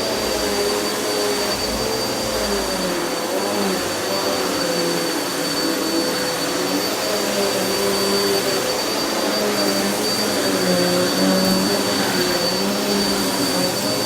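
Vacuum cleaner running continuously, a steady rush of suction air with a motor hum that wavers slightly in pitch and a thin, steady high whine above it.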